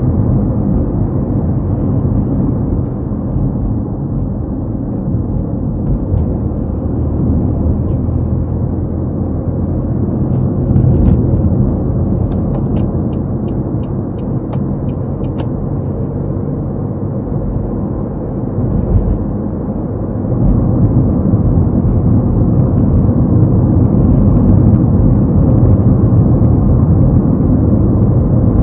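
Car driving on a road: steady engine and tyre rumble that steps up and grows louder about two-thirds of the way through. Midway comes a short run of quick, evenly spaced ticks, about nine in three seconds.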